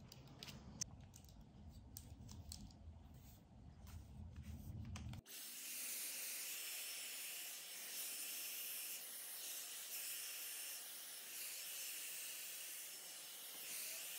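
Dyson Airwrap hair styler blowing air: a steady, even hiss of airflow that starts abruptly about five seconds in. Before that there is only a low rumble with a few faint clicks.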